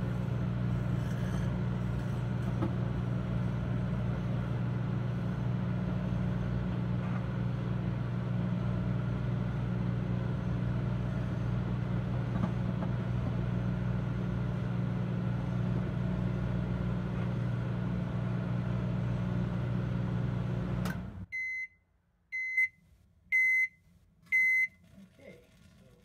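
Microwave oven running with a steady hum, cutting off abruptly near the end, followed by four short high beeps about a second apart: the timer's end-of-cycle signal.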